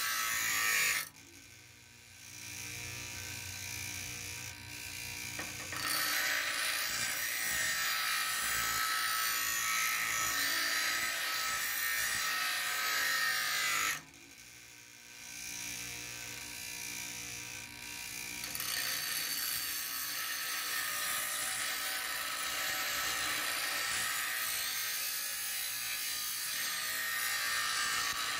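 Bauer 6-inch bench grinder grinding a steel kukri blade: a loud, harsh grinding of steel against the spinning wheel. It eases off twice, about a second in and again about halfway, and for a few seconds only the grinder's motor hum and a lighter grind are heard.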